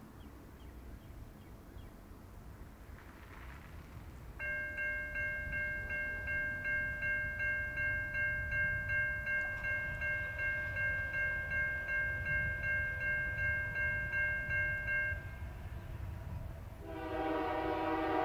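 Diesel freight locomotives rumbling as they pull a heavy train upgrade. A bell rings fast and evenly, about twice a second, for some ten seconds, typical of a grade-crossing warning bell, and near the end the lead locomotive's multi-chime air horn sounds.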